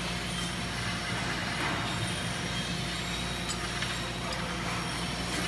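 Steady hum of factory machinery, with a few faint clicks and taps over it.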